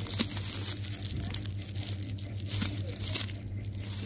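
Thin plastic wrapping on a pack of notebooks being crinkled and torn open by hand, in irregular crackles, with a louder crackle shortly after the start.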